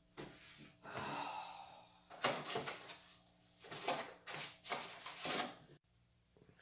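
Handling noise from a phone being fumbled with and picked up off a wooden table: a series of rustles and knocks that cuts off abruptly near the end.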